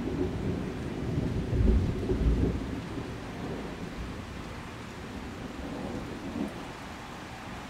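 Rain falling steadily on a river, with a low rumble of thunder that swells about two seconds in and then fades.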